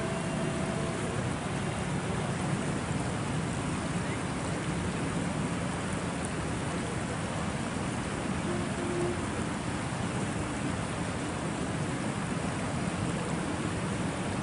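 Floodwater rushing across a road: a steady, even rushing noise.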